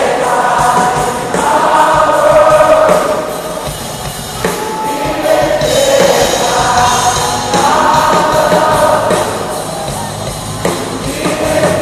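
Live worship music: a band playing amplified with many voices singing together in long held phrases, a large crowd singing along.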